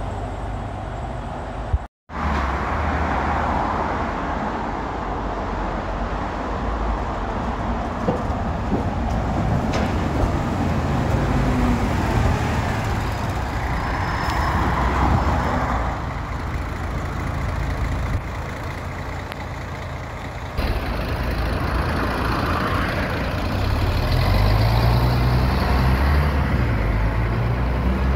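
City buses passing and pulling away on a street, their diesel engines and tyres running over general traffic noise. The sound drops out briefly about two seconds in and jumps in level near twenty seconds at edits, and a bus engine grows louder near the end as it pulls away.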